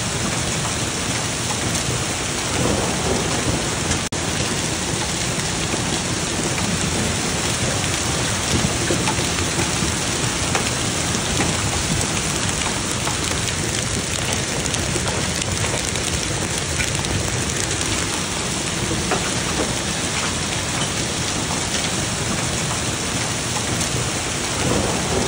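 Large hailstones mixed with heavy rain pelting a lawn and gravel yard, a dense, steady clatter and hiss of countless impacts.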